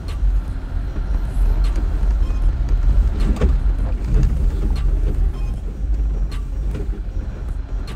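Jeep Gladiator pickup crawling at low speed over rock: a steady low engine and drivetrain rumble, with a few scattered clicks and knocks.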